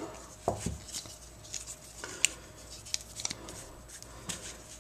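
Leatherman Wave multi-tools being unfolded by hand, the handles swung open to the pliers: scattered light metal clicks and handling noises, with a sharper click a little before halfway.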